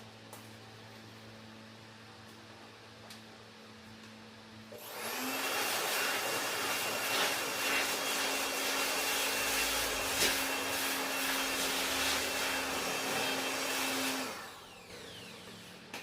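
A small electric motor driving a fan runs for about nine seconds, a rushing of air with a steady whine. It starts about five seconds in, rising briefly in pitch as it spins up, and cuts off near the end.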